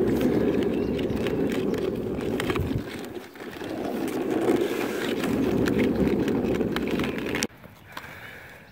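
Small hard wheels rolling over rough, cracked asphalt, heard close up from a moving rider: a steady rumble scattered with small clicks and knocks, which stops abruptly near the end.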